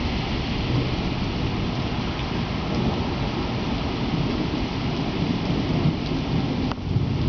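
Heavy rain pouring onto paving and a wet street, a loud steady hiss with a deep rumble underneath.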